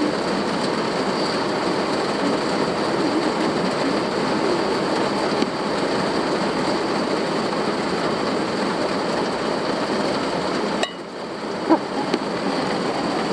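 Steady rain falling, an even hiss of rainfall. The sound drops off suddenly near the end, followed by a single short tap.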